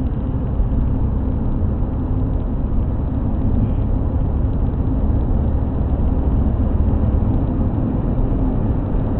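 Steady road and engine rumble inside a car's cabin cruising at dual-carriageway speed, picked up by a dash cam's built-in microphone.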